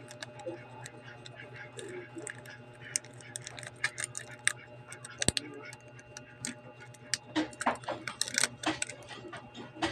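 Irregular small clicks and taps of hand tools on a smartphone during a screen repair, busier in the second half, over a steady low hum.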